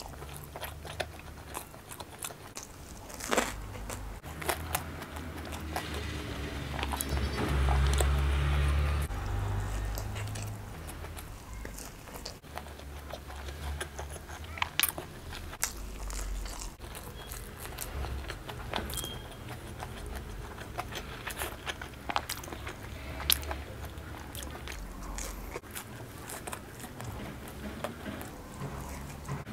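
Close-miked biting and chewing of pizza, with scattered sharp crunches over a low, muffled rumble that swells loudest about seven to ten seconds in.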